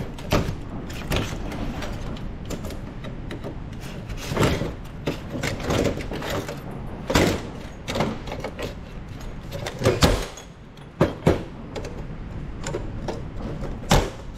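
Hand snips cutting copper radiator tube bends off a perforated steel plate: irregular sharp metal snaps and clinks as the cutters close and copper pieces knock against the steel workbench.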